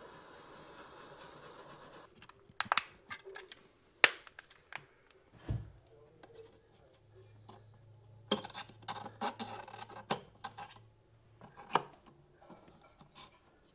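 Hands working small parts and wire: scattered sharp clicks and taps, then a quick run of clicking and scraping for about two seconds past the middle, over a faint low hum.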